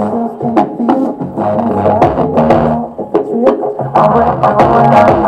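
Pop song with a steady beat of about two strokes a second and a bass line, played over Bluetooth through a TPA3116 class D amplifier board driving an 8-inch Timpano Audio speaker and a Dayton Audio woofer standing in as a subwoofer.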